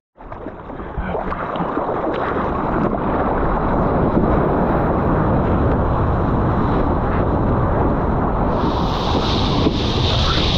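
Sea water rushing and splashing around a surfboard-mounted action camera, with wind buffeting its microphone; it builds up over the first two seconds after a brief drop-out. Near the end a brighter hiss joins as the board runs through broken whitewater foam.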